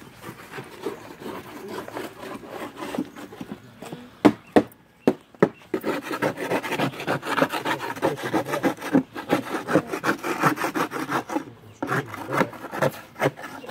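Vinyl siding being cut by hand: a few sharp clicks, then fast, repeated rasping strokes that stop briefly and start again near the end.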